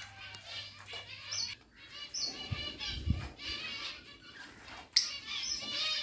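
A flock of budgerigars chattering and warbling, many overlapping chirps. There is a short low thud about halfway through, and a sharp, loud chirp near the end.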